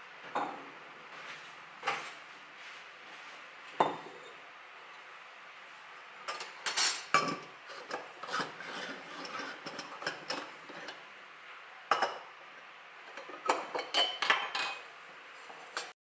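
A stainless steel moka pot being unscrewed and taken apart on a countertop: metal parts clink, knock and scrape against each other and the counter. There are a few single sharp taps, then busier runs of clinking and rubbing.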